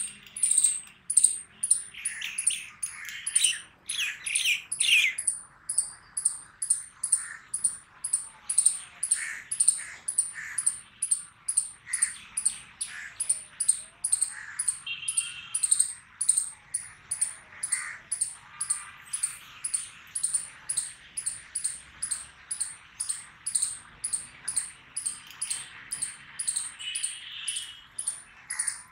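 Palm squirrel chirping: a high, sharp call repeated about twice a second without a break, over scattered lower bird calls.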